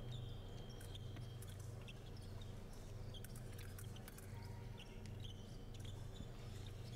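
Faint steady low hum with scattered light clicks and knocks, and a thin high tone near the start.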